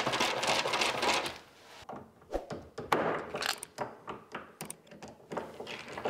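Hand screwdriver driving a door-hinge screw into the side of a fridge cabinet: irregular small clicks and scraping of metal on metal and plastic, densest in the first second and a half, then in scattered clicks.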